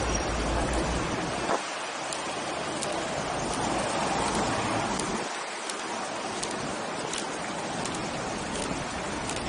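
Steady rushing wind noise on a body-worn action camera's microphone during a run, with a low buffeting rumble that drops out about a second and a half in and again past the halfway point. Faint, regular ticks come about every two-thirds of a second.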